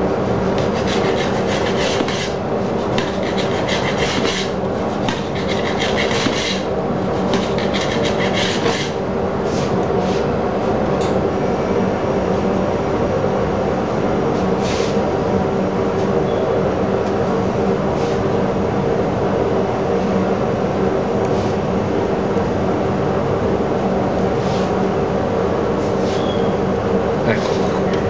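A steady machine hum holding several even tones, like a motor running. Over it, a spell of rustling and scraping strokes in roughly the first nine seconds, with a few scattered clicks later.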